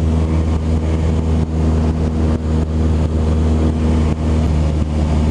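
Cessna 172 Skyhawk's piston engine and propeller running steadily in flight, a constant low drone as heard from inside the cabin.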